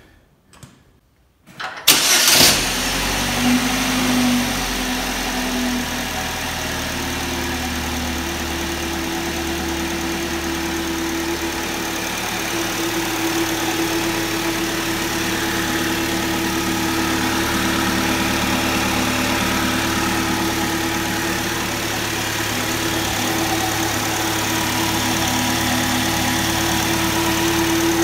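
GM 2.4-litre Ecotec inline-four engine starting about two seconds in, then idling steadily. This is the first start after a timing chain replacement.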